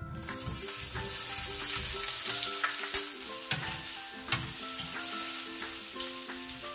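Sliced hotdogs dropped into hot oil in a frying pan, sizzling steadily as they are stirred with a plastic spatula, which knocks against the pan a couple of times.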